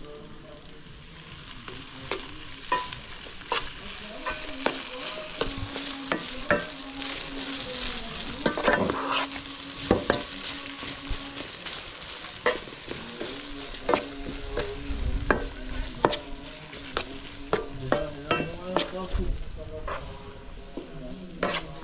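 Diced chicken breast and tomato sizzling in a metal pan, with a metal slotted skimmer scraping and clacking against the pan as the food is stirred, many sharp clicks over a steady hiss.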